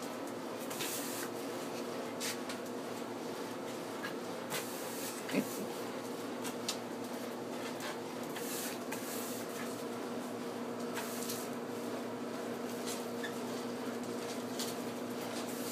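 Push broom bristles scraping on concrete in short, separate strokes, with a sharp knock about five seconds in, over a steady background hum.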